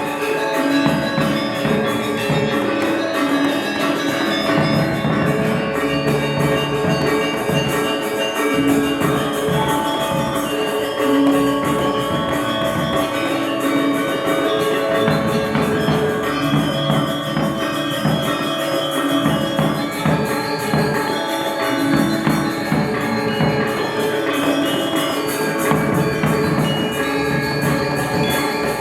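Balinese gamelan gong ensemble playing: bronze metallophones and gongs struck in a steady stream of quick, ringing notes.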